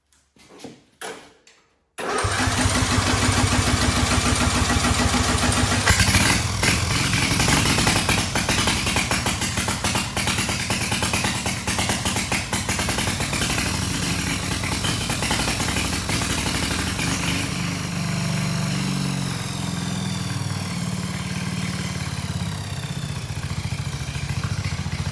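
A derby riding lawnmower's engine fires about two seconds in and keeps running. Its speed surges and wanders, sagging in the last third.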